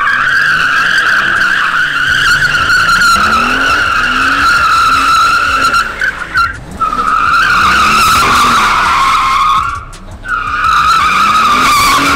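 Mercedes SL65 AMG twin-turbo V12 doing donuts: the tyres squeal loudly and steadily, breaking off briefly twice, about six and a half and ten seconds in. The engine revs rise and fall underneath.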